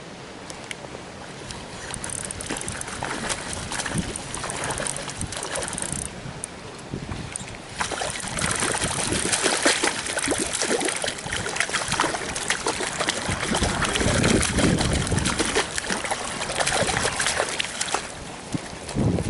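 A hooked trout splashing and thrashing at the water's surface as it is reeled in close. The splashing is irregular and gets louder about eight seconds in.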